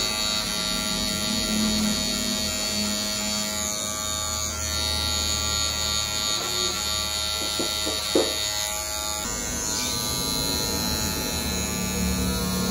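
Electric hair clipper running steadily while cutting hair, with a short knock about eight seconds in.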